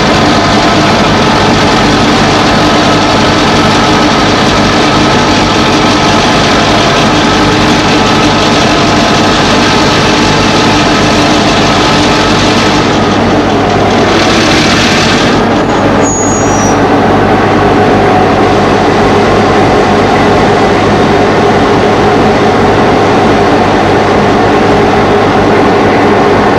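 V/Line T class diesel-electric locomotive idling, a steady engine note with several held tones. About halfway through there is a short hiss and a click, after which the engine note shifts slightly.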